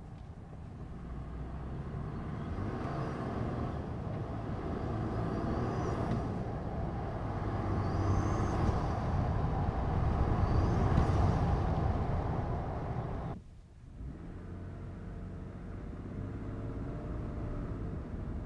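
2022 Toyota Tundra's twin-turbo V6, still on its stock air filter, heard from inside the cab under light acceleration. The engine noise builds over several seconds, with faint turbo whistles rising and falling. About 13 seconds in it drops off suddenly, then settles to a lower steady cruise.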